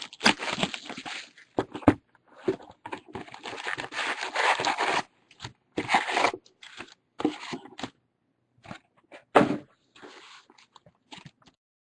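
Trading card packaging being torn open and crinkled: a sealed box of football card packs opened and its foil packs ripped, in irregular rips and rustles that stop about a second before the end.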